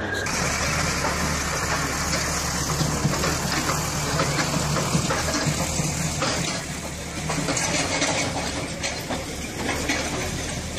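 Diesel engine of a JCB tracked excavator running steadily.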